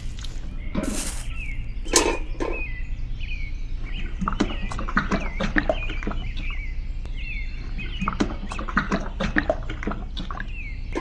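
Small birds chirping, with a quick run of short clicks and taps from about four seconds in, over a steady low hum.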